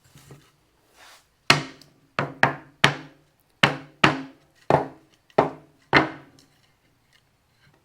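Wooden shutter boards knocking against each other and against a hard surface as they are handled: about nine sharp wooden clacks at an uneven pace.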